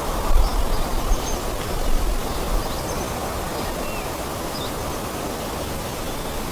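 Forest ambience: a steady rushing noise with a low rumble, and faint short bird chirps now and then.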